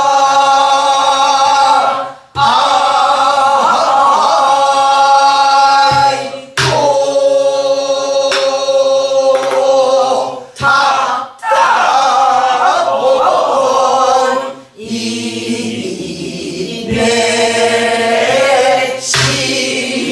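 A group of voices singing a Korean Namdo folk song together in long, held phrases with bending pitch. The phrases break every few seconds, and a few sharp strokes of a buk barrel drum mark the beat.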